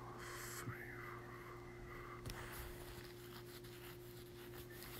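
Faint room tone: a steady low hum under a soft hiss.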